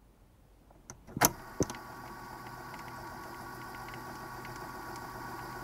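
Two sharp knocks about a second in, then a steady mechanical hum made of several fixed tones.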